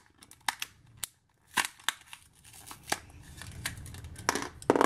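A plastic pack of gel pens being pried and torn off a cardboard notebook cover: irregular sharp clicks, snaps and crackles of plastic and card, scattered at first and coming thick and loudest near the end. The pull tears away part of the cover.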